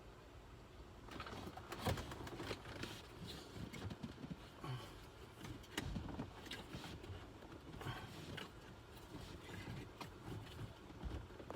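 Irregular plastic clicks, creaks and knocks from a BMW E90 blower motor being forced by hand in its plastic housing. The motor is stuck fast as it is twisted to release it. The sounds begin about a second in.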